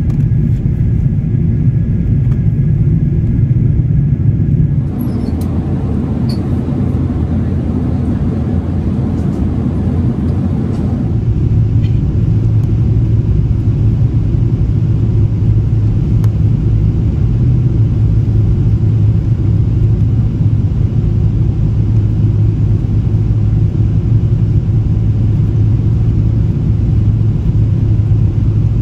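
Cabin noise inside a Boeing 777 on final approach: a steady low rumble of engines and rushing air, heard from a window seat over the wing. The sound changes abruptly about five and about eleven seconds in.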